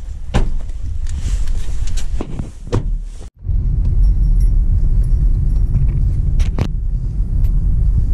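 Clicks and knocks of someone getting into a car's front seat. After a sudden cut, a steady low rumble of the car driving along a rough road, heard from inside the cabin, with a couple of sharp clicks.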